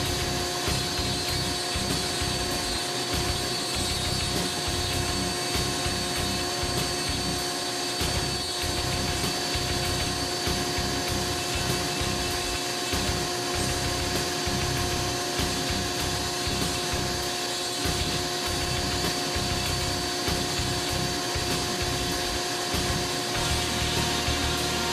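Foredom flex-shaft rotary tool with a carbide burr grinding white cedar, held at a steady speed while shaping a decoy head, with a steady whine and the rasp of the burr cutting wood. A vacuum-like dust-collector hum runs under it.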